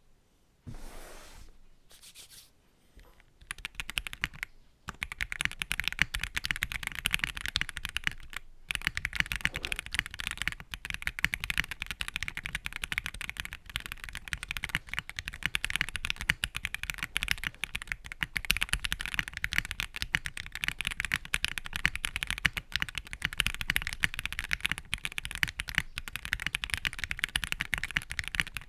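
Fast typing on a mechanical keyboard with Gateron CJ linear switches, a clacky, high-pitched stream of keystrokes. The board is built with a POM plate, PE foam and plate foam. The typing starts about three seconds in, after a little faint handling noise.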